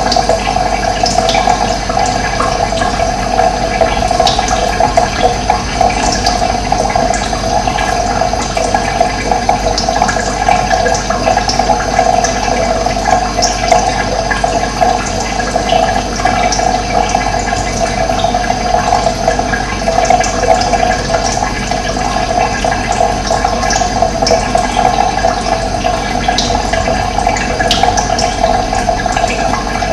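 Steady rush of running water, with occasional short bird chirps over it.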